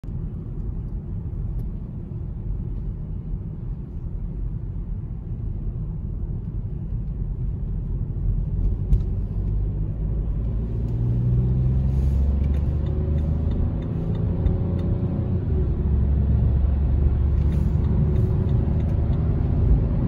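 Road noise inside a moving car: a steady low rumble of engine and tyres. From about halfway through, the engine note rises and the noise grows louder as the car speeds up, then holds steady.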